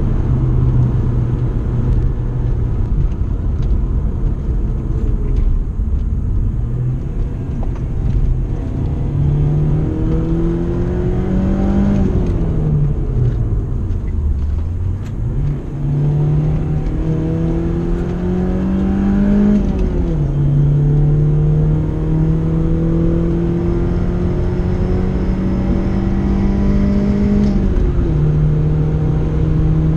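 BMW E36 3 Series engine under hard acceleration, heard inside the stripped cabin. The revs climb through each gear and drop at the upshifts about twelve, twenty and twenty-eight seconds in. Around fourteen seconds the revs fall low for a moment, then build again.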